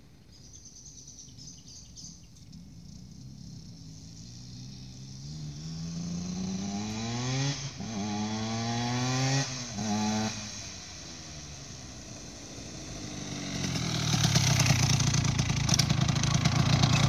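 Cagiva Mito 125's two-stroke single-cylinder engine, fitted with a modified cylinder, approaching under acceleration: it revs up twice with a sudden drop in pitch at each gear change, eases off, then grows loud as it pulls up close, running at low revs near the end.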